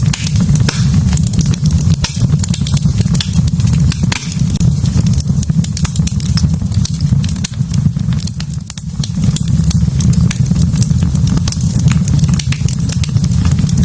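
Wood fire burning in a fireplace, crackling with dense, irregular sharp pops over a steady low rumble.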